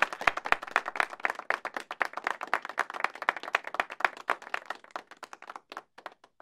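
Group of people clapping by hand; the claps thin out in the last couple of seconds and stop at the end.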